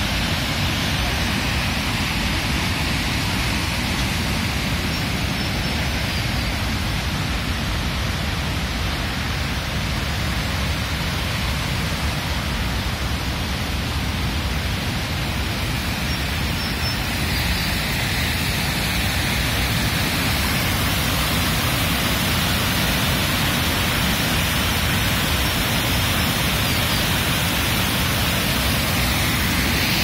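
Waterfall: white water pouring over boulders, a loud steady rush that turns brighter and hissier a little past halfway.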